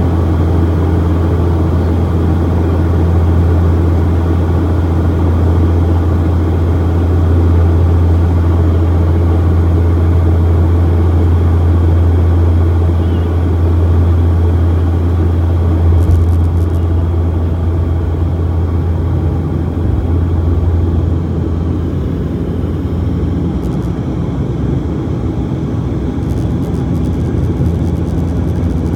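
Cabin noise of a turboprop airliner on approach: a steady low propeller drone over engine and airflow noise, easing slightly about two-thirds of the way through.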